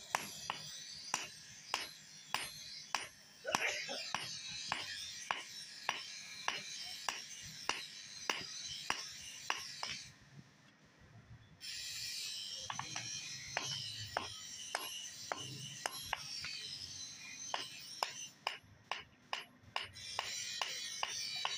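Hand hammer striking a red-hot steel spade blade on an anvil in a steady rhythm of about two to three blows a second, as the blade is forged. The blows stop for a second or two about ten seconds in, then resume.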